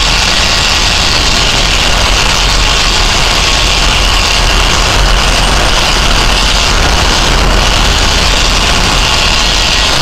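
Steady, loud drone of heavy engines and machinery, with a constant hiss higher up and no change throughout.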